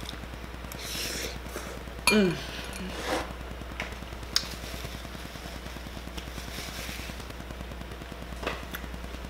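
Someone eating noodles: a slurp about a second in, a short hummed 'mm' just after two seconds, and a few sharp clicks of a utensil against a bowl. A desk fan hums steadily underneath.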